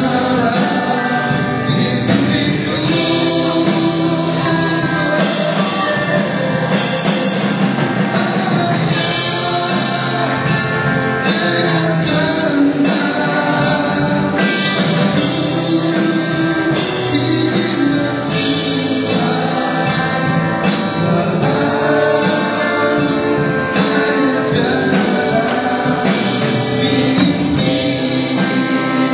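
Live band music: several voices singing together into microphones over an amplified band with electric guitars and keyboard.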